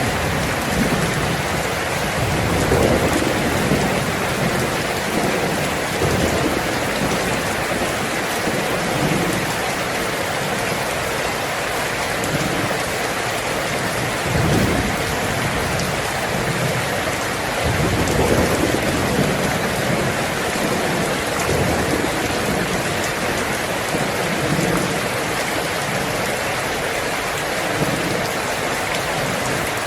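Heavy rain drumming steadily on a tin roof, with low rolls of thunder rumbling up several times.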